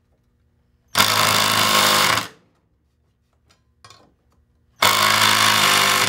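Cordless impact driver hammering a lag bolt into a wooden bracket and post in two short bursts of about a second and a half each, with a gap of a few seconds between them: the bolt being cranked down once the bracket is square.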